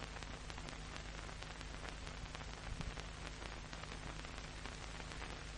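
Faint steady hiss with many scattered crackles and a low steady hum: the background noise of an old film soundtrack.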